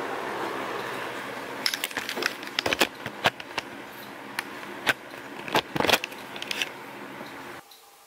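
1994 Duracraft DB-104 10-inch box fan running steadily on low speed, a motor hum. From about two seconds in, irregular clicks and knocks of the camera being handled come over it, and near the end the sound cuts off abruptly.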